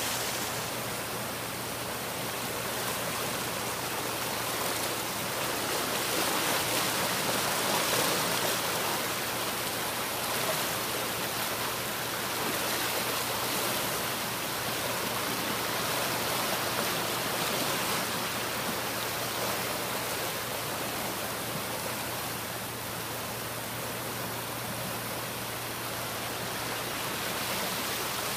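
Floodwater rushing over a concrete causeway and down a flooded creek: fast-flowing water making a steady, even rushing sound.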